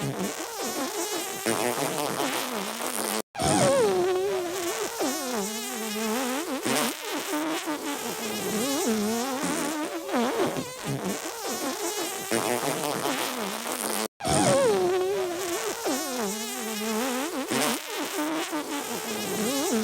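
Looped comic fart-and-sneeze sound clip with a wavering, wobbling pitch. It drops out for an instant and restarts twice, about eleven seconds apart.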